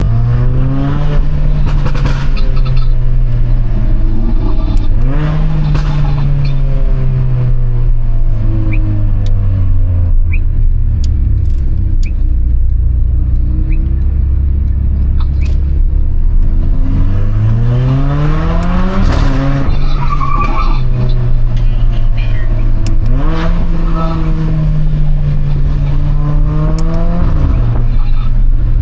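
Mercedes-AMG GLA45's turbocharged four-cylinder engine revving up and falling back several times while driving. Sharp exhaust pops and crackles come on the overrun, thickest in the middle stretch when the revs drop.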